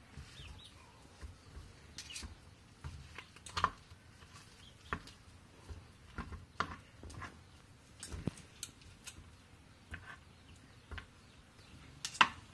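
Knife and fork tapping and scraping on a plastic cutting board while shredding cooked venison: irregular light clicks, about a dozen, the loudest near the end.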